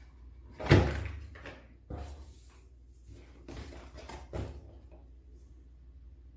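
Unstable Unicorns cardboard card-game box and cards being handled on a table: a sharp knock about a second in, then a few softer knocks and rustles as pieces are set down and moved.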